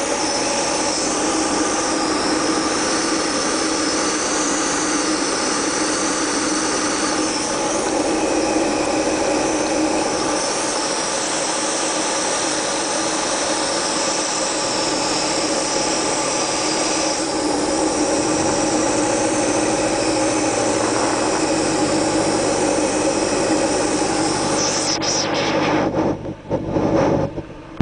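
Cabin drone of a Diamond DA-20 Eclipse light aircraft in flight: its four-cylinder Continental engine and propeller running steadily. Near the end the sound dips sharply and wavers for a couple of seconds.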